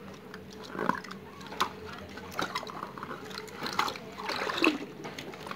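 Hands squeezing and kneading a water-filled latex balloon: wet rubber rubbing and squelching, with the water shifting inside. The sound comes as irregular short rubs and clicks, with a longer, louder stretch about four and a half seconds in.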